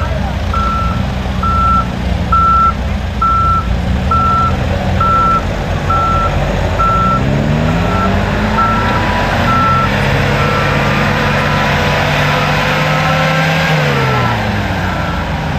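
Case 580 backhoe loader's reversing alarm beeping steadily, about twice a second, over the engine noise as it backs up towing a mud-stuck Jeep. Partway through, an engine revs up under load, holds, and drops back near the end as the Jeep comes free of the mud.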